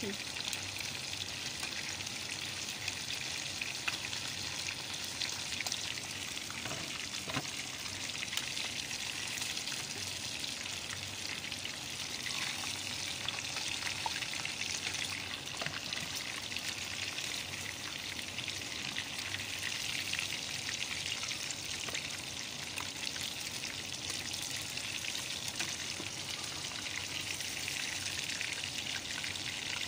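Chicken pieces deep-frying in a pan of hot oil: a steady sizzle with many fine crackling pops throughout.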